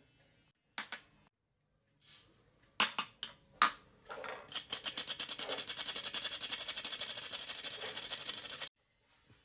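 A few sharp knocks as a glass grinder jar is tapped and emptied into a metal flour sifter. Then the metal flour sifter rasps with a fast, even rattle for about four seconds as it sifts ground psyllium seed, and stops suddenly.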